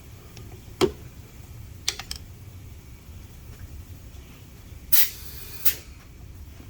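Machine spindle slowly power-tapping a bolt hole in a cast cylinder head, a low steady running hum with a few sharp metallic clicks. Two short, loud hisses come about five seconds in.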